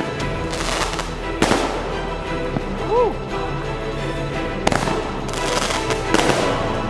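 Consumer firework cake firing its finale: several sharp bangs a second or more apart, with a short whistle that rises and falls about three seconds in, over background music with a steady beat.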